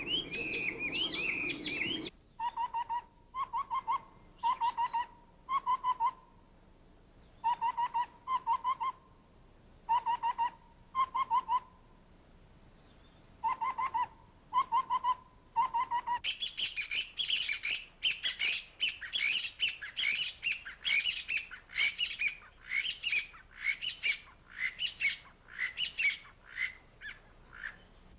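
Taiwan hwamei and lesser scimitar babbler singing. For about fourteen seconds come short, low whistled phrases of two or three notes, repeated about once a second, typical of the scimitar babbler. From about sixteen seconds on, a long, rich run of quick, varied notes follows, typical of the hwamei's song.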